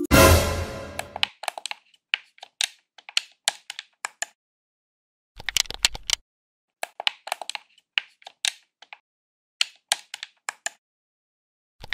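Laptop keys and game-controller buttons clicking and tapping in irregular quick bursts, pressed by a dog's paws. A music chord dies away at the start.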